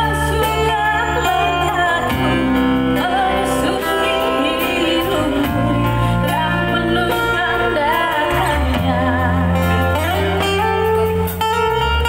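A woman singing into an amplified microphone, with a wavering vibrato on held notes, backed by a live band of acoustic guitar, bass guitar and drums.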